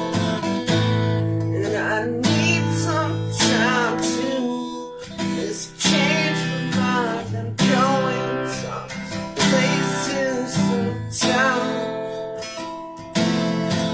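Acoustic guitar strumming chords in a steady rhythm, with a melodic line over the chords.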